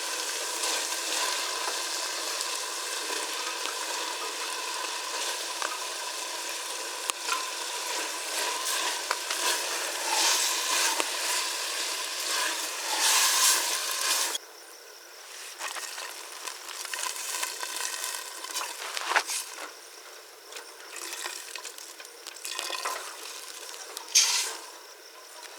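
Chicken biryani masala frying and sizzling in a pan over a wood fire, with a spoon stirring. A little over halfway through, the sizzle suddenly drops much quieter, leaving a softer hiss and scattered clicks of the spoon against the pan.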